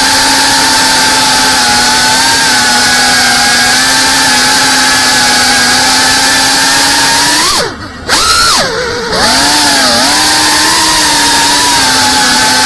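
Brushless motors and propellers of an FPV quadcopter whining at a steady high pitch, heard through the onboard camera. A bit over halfway through, the motors spool down sharply in a falling sweep and the sound dips, then they spool back up, waver in pitch and settle steady again.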